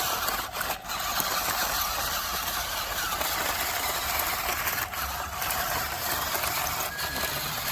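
Electric motor and gearbox of an RC model construction vehicle running steadily, a continuous mechanical whirring hiss.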